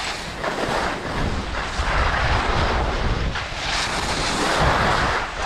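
Skis sliding and scraping over packed, groomed snow at about 10 mph, a continuous hiss that swells and eases through the turns, with wind rumbling on the action camera's microphone.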